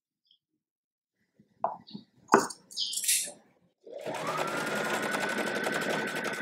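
A few short, sharp noises, then about four seconds in an electric sewing machine starts stitching cotton tape: its motor whine rises quickly to a steady pitch and the stitching runs on evenly.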